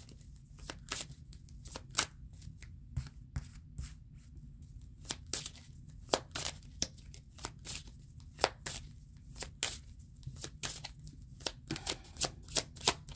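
Deck of tarot cards shuffled by hand: irregular soft card clicks and slaps, a few louder than the rest, over a faint low room hum.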